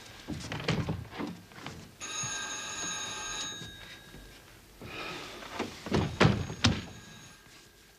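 A telephone bell ringing twice, each ring lasting about a second and a half, with door thuds around the rings, the loudest near the end.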